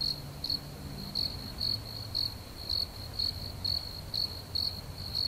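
Crickets chirping, a high chirp pulsing about twice a second: the stock awkward-silence sound effect cut in after an unfunny joke.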